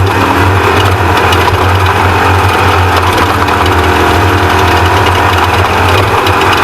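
Off-road race truck's engine running hard and steadily, under a loud, broad rush of noise.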